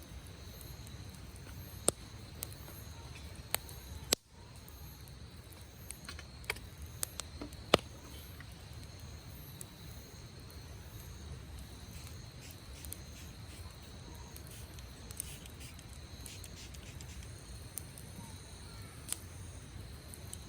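Wood campfire crackling, with irregular sharp pops over a low steady rumble of burning.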